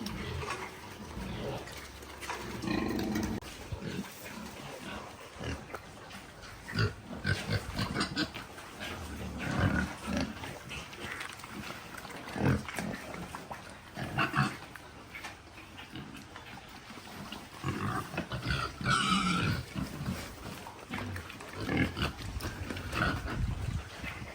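Pigs grunting in short, irregular bursts, with one louder, higher squeal about nineteen seconds in.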